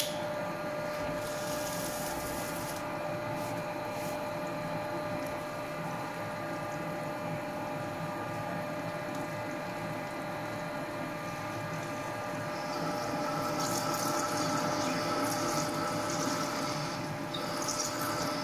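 Ward 3A capstan lathe running with a steady whine while its turret-held twist drill cuts into a bush under a stream of cutting coolant. About two-thirds of the way in, a higher hiss grows louder.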